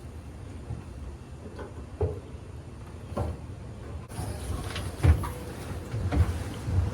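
Scattered clunks and knocks of dryer panels and parts being handled and fitted, with a sharper thud about five seconds in.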